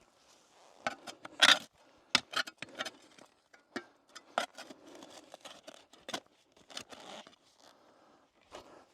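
Irregular clicks, knocks and scrapes of hands-on building work, with a loud sharp knock about a second and a half in.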